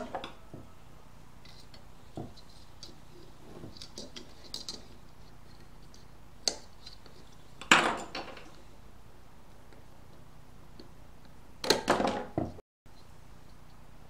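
Hard plastic clicking and knocking as the Hall sensor block is unclipped by hand from an LG direct-drive washing-machine motor's stator, with two louder bursts of clattering about 8 and 12 seconds in.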